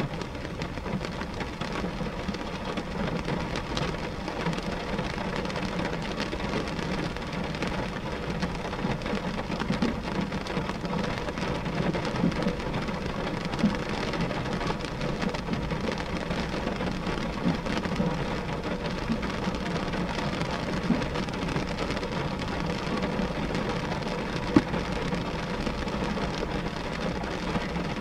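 Rain falling on a glass window pane: a steady patter of many drops on the glass, with one sharper tap late on.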